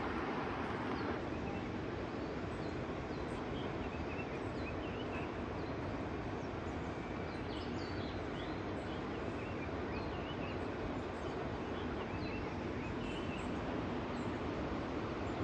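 Small birds chirping in short, scattered calls over a steady, louder background rush of outdoor noise.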